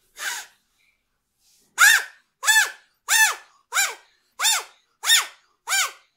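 Homemade puppeteer's whistle (a stiff paper reed held between two ice-cream sticks with rubber bands) blown in short, buzzy squawks, each rising and falling in pitch. One squawk comes just after the start; after a pause of about a second and a half, a steady run follows at about one every two-thirds of a second. The player is making the whistle 'say' the letters ABCD.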